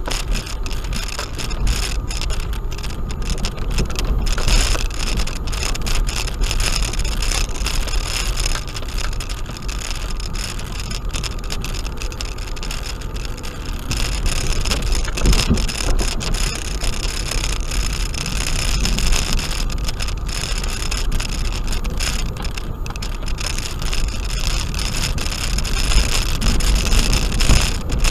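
Suzuki Grand Vitara 4WD driving along a rough gravel track, heard from inside the cabin: a steady low rumble with the hiss and crunch of tyres on gravel, a little louder about halfway through.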